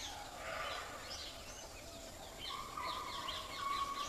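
Forest ambience with birds calling: a run of short, repeated chirps throughout, joined about halfway through by a steady, held note.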